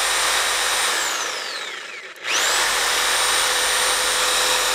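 Hercules corded variable-speed reciprocating saw running free with no blade load: a steady motor whine with the hiss of its cooling fan. About a second in the trigger is released and the whine falls as the motor spins down, stopping just past two seconds in; it is then pulled again and the saw quickly spins back up to a steady full speed.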